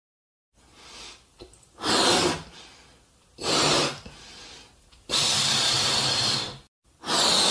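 Balloons being blown up by mouth: loud rushes of breath, in and out, in separate gusts. There are two short ones, then a longer blow of about a second and a half about five seconds in, and another near the end.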